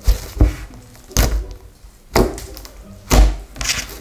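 Hands pressing and slapping a soft homemade slime against a table, giving about six sudden squishy thuds, roughly one a second.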